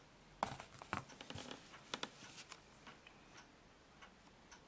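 Light taps and clicks from a hardcover book being handled, followed by a few faint ticks.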